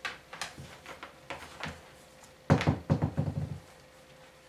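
Clicks and knocks from a plastic Logitech X-140 computer speaker being handled and connected, with a louder burst of knocking and rattling about two and a half seconds in that lasts about a second.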